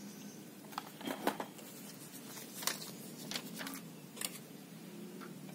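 Cardboard box and paper inserts being handled: a handful of short, irregular rustles and taps.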